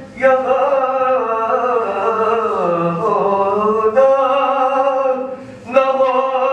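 A man singing a naat unaccompanied, holding long ornamented notes that bend up and down, with a short pause for breath about five and a half seconds in.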